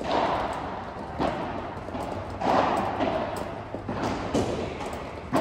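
Padel ball being hit back and forth with rackets in a rally: about five sharp knocks roughly a second apart, each ringing on in the reverberant covered hall.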